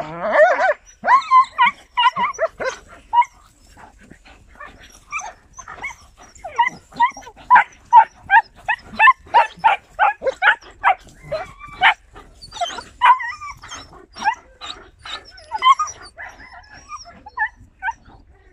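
Young German Shepherd dogs barking and yipping in quick short calls, several a second, as they play-fight with adult dogs, with whimpers among them; a wavering whine opens it.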